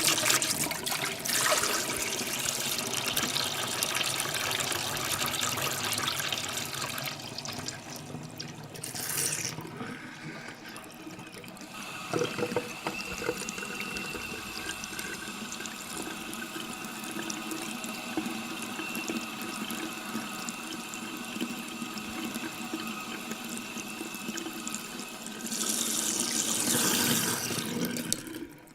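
Tap water running into a sink. The flow changes: a strong stream at first, a weaker one for a few seconds, then a steady stream with a thin high ringing tone, and a louder gush near the end.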